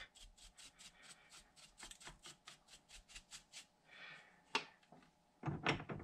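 A small brush scrubbing metal chips off a steel lathe tool holder in quick short strokes, about six a second. Near the end come a few sharp metal clicks and knocks as the holder is handled and set on the lathe's tool post.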